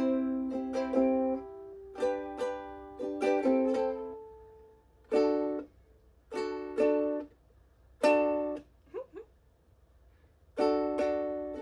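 Ukulele strumming chords in short riffs, several strokes at a time, with brief pauses between phrases and a fuller run of strums near the end.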